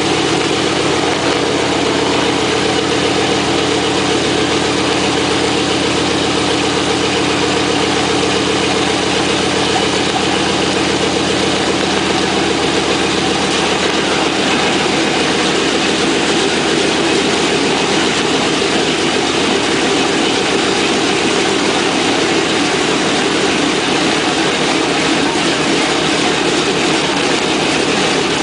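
A Boeing B-17's nine-cylinder Wright R-1820 Cyclone radial engines running with their propellers turning: a loud, steady engine note whose tone shifts slightly about twelve seconds in.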